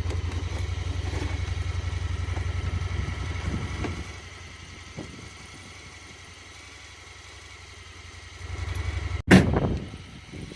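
Side-by-side utility vehicle's engine idling with a steady low pulsing, dropping away about four seconds in. Near the end comes a sudden loud low thud.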